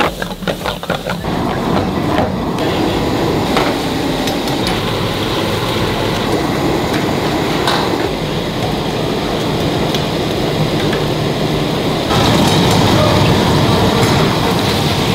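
Busy commercial kitchen: high-flame gas wok burners running steadily, with metal ladles knocking against woks now and then. It grows louder about twelve seconds in as food goes into sizzling hot oil.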